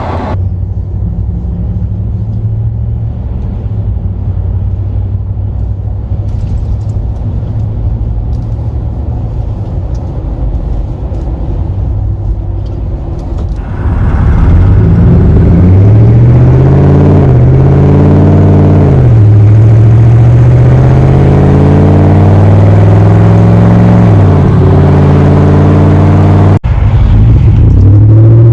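Ram 1500's Hemi V8 running through dual Totalflow 314633 mufflers: a steady low rumble at first, then about halfway through it gets much louder and the pitch climbs and falls several times as the engine is revved. The sound cuts out for an instant near the end.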